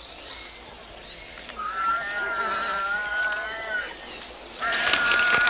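An animal calling: two long, high, wavering cries of about two seconds each, the second louder and starting near the end.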